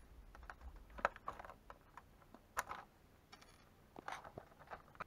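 Faint, scattered small clicks and ticks as stubborn spring-steel body clips are worked off the body posts of a 1/18 scale RC short course truck's plastic body.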